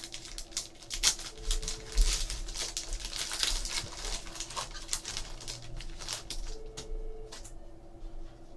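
Trading cards being handled and flicked through by hand: a run of quick slides, rustles and light clicks of card stock.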